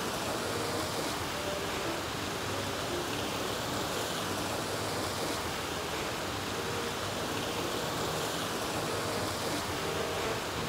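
Rushing mountain stream pouring over rocks and a small waterfall in a narrow canyon: a steady, dense water noise with no breaks.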